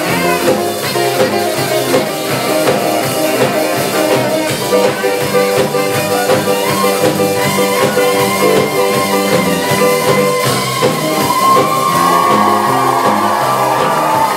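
Live rock band playing with a steady drum beat: drum kit, electric guitars and keyboard.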